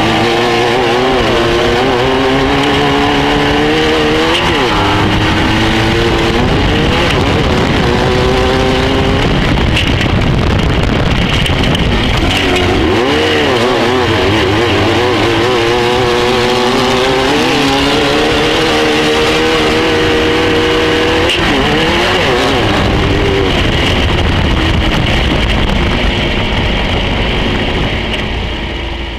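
A 1600 light buggy's engine at race pace, heard from inside the cockpit, its pitch climbing and then dropping several times under a constant rush of noise. It fades out near the end.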